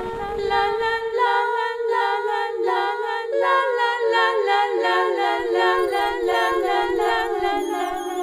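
Several voices singing a cappella in close harmony, the chord stepping from note to note about every half second.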